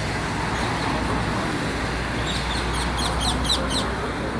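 Steady outdoor background noise with a low hum, and a quick run of high bird chirps a little past two seconds in, lasting under two seconds.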